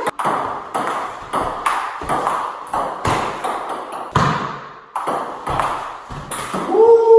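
Table tennis rally: the ball struck back and forth between bats and a Cornilleau table, a quick, even run of sharp clicks about two or three a second, each with a short ring of room echo. A man's voice comes in near the end.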